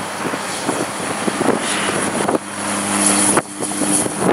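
Cessna Caravan's single turboprop engine and propeller running at power as the aircraft rolls along the runway. The sound changes abruptly about halfway through and again near the end, where clips are spliced together.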